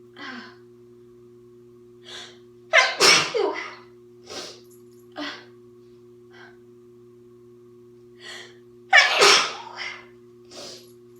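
A woman sneezing twice, about six seconds apart, each sneeze a loud burst. Shorter, quieter breath sounds come before and between them, over a faint steady hum.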